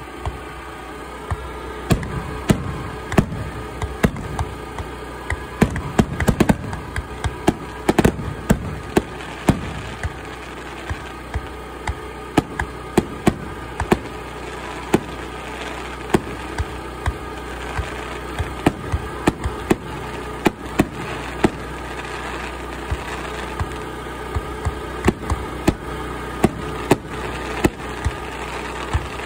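Aerial fireworks display: shells launching and bursting in a rapid, irregular string of bangs, coming thicker as the display builds.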